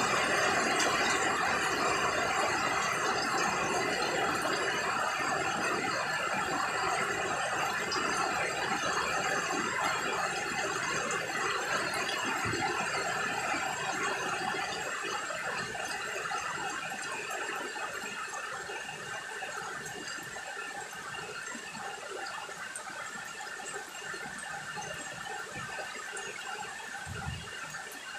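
Heavy rain falling on garden foliage, with water streaming off a roof edge: a dense, even downpour that gradually eases and grows quieter.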